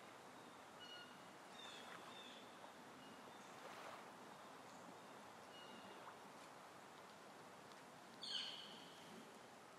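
Faint outdoor ambience, a steady soft hiss with a few short, high bird chirps scattered through it; the loudest is a sharp call about eight seconds in.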